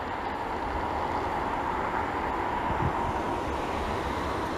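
Distant jet engines of a taxiing Boeing E-4B (747-200), its four CF6-50 turbofans: a steady rush with a humming whine over a low rumble. It swells a little about halfway through and eases off toward the end.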